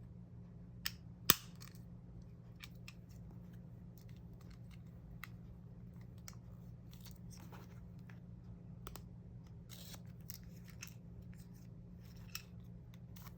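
A cardboard package being cut open by hand with a blade or scissors: scattered small clicks and short scratchy cuts, with one sharp click just over a second in. A faint steady low hum sits underneath.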